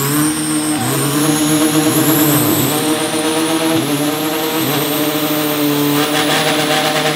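Turbo-diesel drag car, a carbon-bodied funny car with a 3-litre Isuzu 4JJ engine, held at high revs during a burnout. The revs dip and pick up again three times, with a faint high whistle climbing over the engine note.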